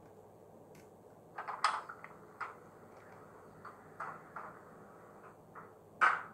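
Sampled cab-door sound of an ÖBB 2143 diesel locomotive played by the H0 model's ESU LokSound V5 decoder through its small speaker: a string of clicks and knocks, the loudest about one and a half seconds in and another just before the end.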